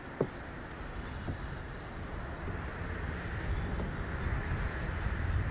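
Low rumble of an Airbus A350's Rolls-Royce Trent XWB turbofan engines as the airliner climbs away after takeoff, growing slowly louder. A brief click comes just after the start.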